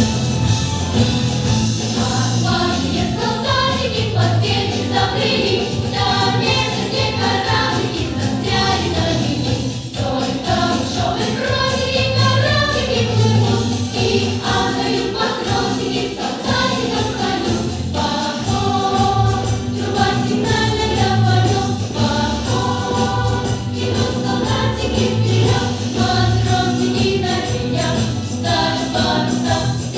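A children's pop vocal ensemble singing together over a band accompaniment with a steady beat.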